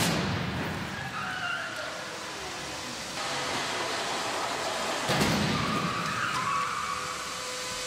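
Crash-test impacts on a microcar: a crash at the very start and another about five seconds in, each followed by scraping and short squeals of crumpling metal and dragged tyres.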